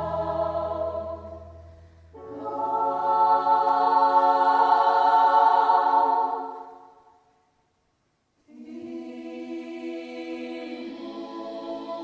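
A musical-theatre cast sings long held chords in harmony, with low notes under the first chord. The sound fades out about seven seconds in, drops to silence for about a second, then a softer held chord begins.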